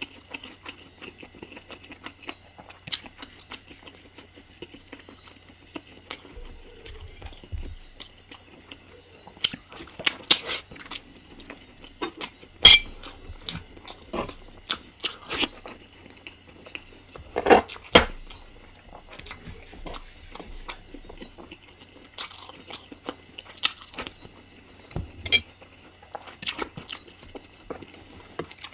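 Close-up eating sounds: chewing and biting into chicken curry, with wet smacking and short crunchy bites scattered irregularly, a few louder ones around the middle.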